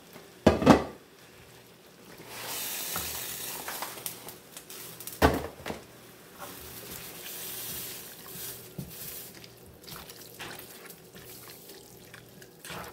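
Rice vermicelli being stirred and pushed down into a pan of simmering broth with a plastic spatula: wet swishing and bubbling, with two sharp knocks of the utensil on the pan, one about half a second in and one near the middle.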